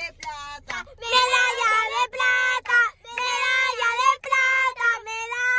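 Children singing a tune in high notes held about a second each, with short breaks between them.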